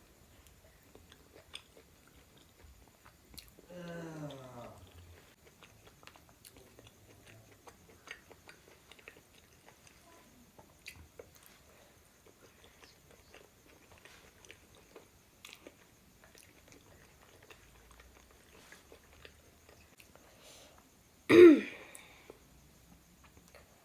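Close-up chewing of pork momos, with a steady scatter of small wet mouth clicks. About four seconds in there is a short low hum that falls in pitch, and near the end a single loud throat sound.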